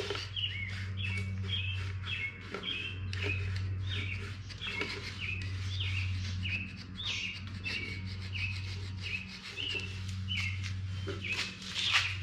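Emery cloth being rubbed back and forth by hand on a Chevy 350 block's oil pan sealing surface to strip off old gasket material. Each stroke gives a short squeaky chirp that drops in pitch, about two strokes a second, over a steady low hum.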